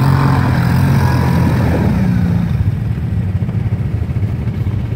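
ATV (quad) engine running under throttle as the quad drives through broken ice and shallow water, growing fainter after about two seconds as it moves away.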